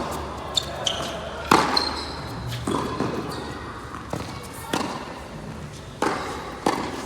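Tennis rally: a series of sharp ball strikes and bounces about a second apart, with brief shoe squeaks on the court and a steady low wind rumble.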